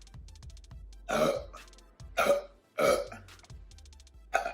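A woman burping: three short, loud burps, then another right at the end, brought up by gulping carbonated Sprite.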